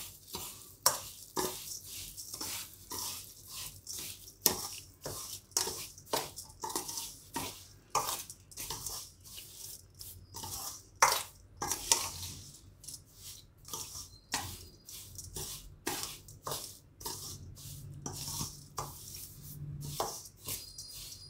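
A spoon stirs and scrapes coarsely ground fenugreek and mustard seeds, freshly soaked in hot oil, around a stainless steel bowl. It makes a steady run of gritty scrapes, about two a second.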